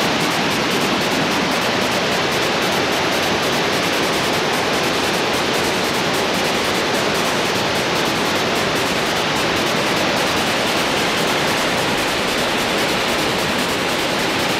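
Steady rush of Roaring Meg Falls, water cascading down smooth granite slabs.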